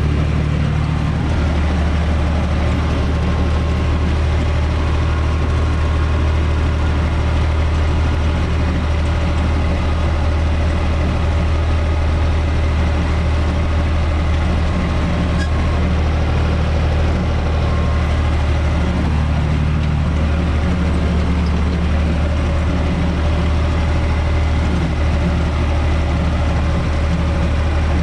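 UTB 445 tractor's diesel engine running steadily with a low, even hum while driving a rear-mounted rotary tiller through soil, heard from inside the cab.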